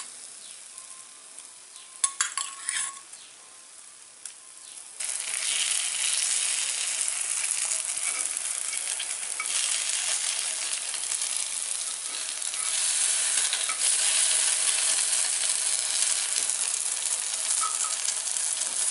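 Paniyaram batter frying in oil in the wells of a paniyaram pan: a steady sizzle that starts suddenly about five seconds in, after a few light clinks.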